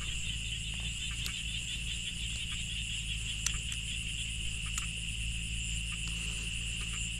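Steady chorus of night insects: one continuous high, shrill trill, with a few faint clicks over it.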